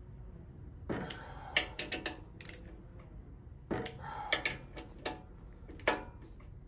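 A torque wrench ratcheting and clicking as the handlebar clamp bolts are tightened to a setting of 18. It gives a series of sharp metallic clicks at uneven intervals.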